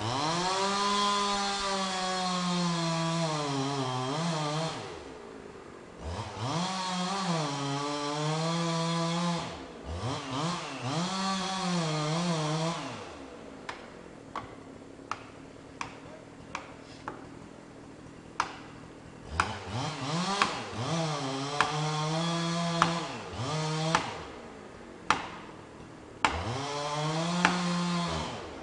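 Two-stroke chainsaw revving up and cutting into a large fir in several bursts, its pitch sagging under load and rising again, then dropping to idle between cuts. While it idles, about a dozen sharp knocks ring out one at a time, a second or so apart.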